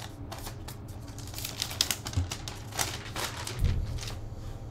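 Paper sheet crinkling and rustling in quick crackles as it is handled and lifted off the cigars in a cedar book humidor, with a soft low thump near the end.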